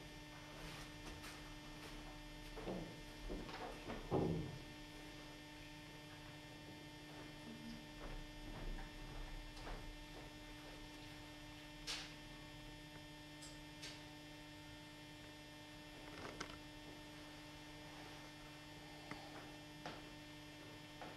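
Steady electrical mains hum, with a few soft knocks and thumps from movement on stage. The loudest thump comes about four seconds in and a sharp click about twelve seconds in.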